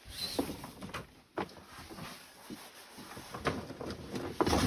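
Scattered light knocks, clicks and rustling scrapes of things being handled and moved about in a small enclosed space.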